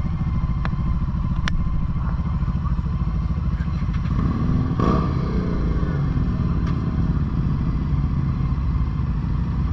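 Motorcycle engine idling steadily under the rider. About four seconds in, a second motorcycle engine rises in pitch and gets louder for a moment, then settles back.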